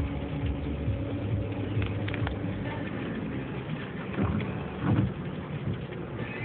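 Car engine idling, heard from inside the cabin as a steady low hum, with two brief louder swells about four and five seconds in.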